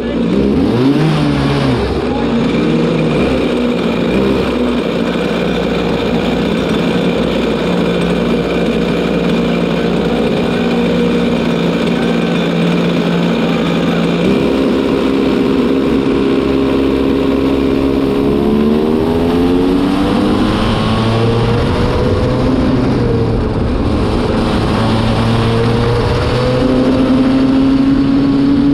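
Racing kart engine heard onboard under load, a new engine being run in. Its pitch rises and falls briefly at the start, holds steady for about twelve seconds, then shifts and climbs repeatedly through the second half as the revs change.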